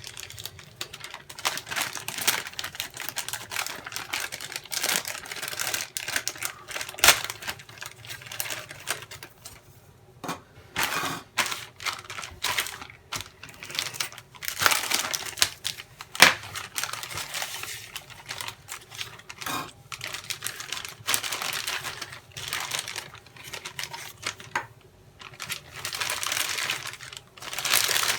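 Plastic parts bags of a model rocket kit being torn open and handled, crinkling, with small parts clicking and knocking on a tabletop at irregular moments.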